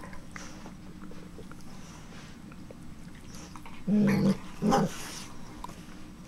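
Dogs playing: two short, loud play growls about four seconds in, about half a second apart, between a pit bull and a miniature pinscher.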